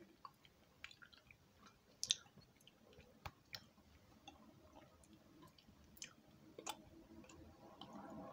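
Faint chewing of a soft, chewy HI-CHEW candy: scattered small wet mouth clicks, a few of them sharper.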